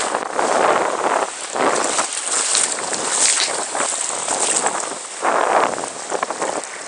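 Seawater splashing and sloshing around the microphone as it dips under the surface and comes back up, in uneven rushing surges.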